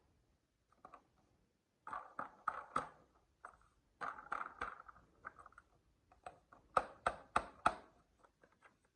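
Marbles rolling and clacking down a wooden HABA marble run: irregular sharp clicks and short rattling rolls that start about two seconds in, with three hard clicks in quick succession about three quarters of the way through.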